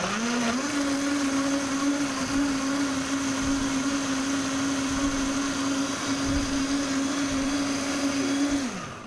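Countertop blender running on high, blending a fruit smoothie. The motor's whine rises in pitch as it spins up, holds steady for about eight seconds, then falls as it winds down near the end.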